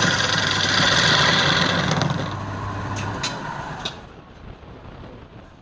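Wood lathe running with a steady hum and hiss, which dies away about two to four seconds in as the machine winds down, followed by a few sharp clicks.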